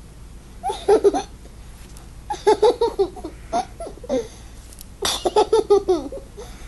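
A toddler laughing in three bouts of quick, high-pitched giggles: a short one about a second in, a longer one from about two to four seconds in, and another near the end.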